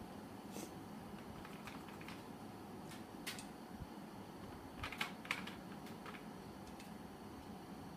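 Scattered light clicks and taps of painting supplies being handled, paint dishes and brush knocking against each other, with two or three sharper clicks in quick succession about five seconds in, over a faint steady room hum.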